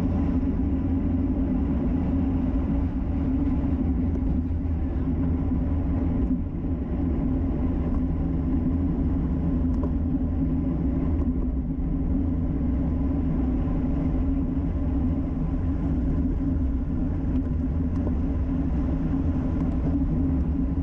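Steady rumble of wind buffeting and tyre-on-road noise, picked up by a camera mounted on a road bicycle riding fast along a highway.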